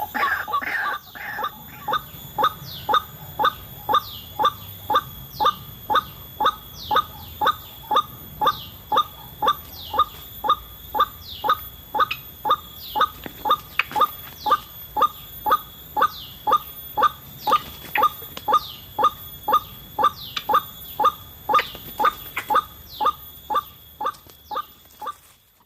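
White-breasted waterhen (ruak-ruak) call repeated over and over, a short note about twice a second in an even, monotonous rhythm, fading near the end, as used for luring the birds to the trap.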